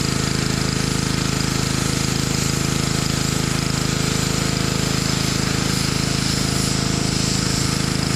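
Small single-cylinder gasoline engine running steadily at constant speed with a rapid, even firing pulse.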